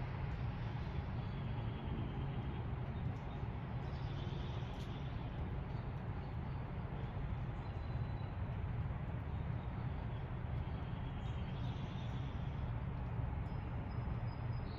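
Steady low rumble of distant traffic, with faint bird chirps a few times.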